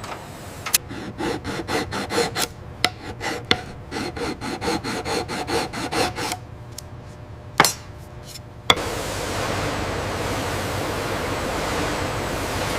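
Rapid back-and-forth rubbing or rasping strokes on wood, several a second, which stop after about six seconds. Two sharp knocks follow, then a steady machine noise starts suddenly about nine seconds in.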